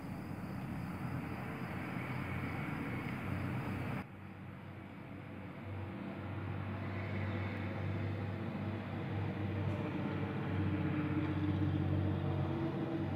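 Steady low rumble of an engine running, with a low hum, growing louder about ten seconds in. The high hiss drops away abruptly about four seconds in.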